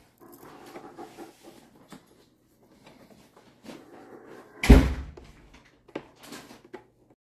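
Hands working the black plastic housing and brush roll of a Bissell StainPro carpet cleaner, with rubbing, scraping and small plastic knocks. A loud single thud comes a little before five seconds in, followed by a few lighter clicks and knocks, as the brush roll and belt are fitted into place.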